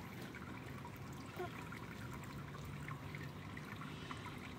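Faint, steady trickling of water, with a few small ticks scattered through it.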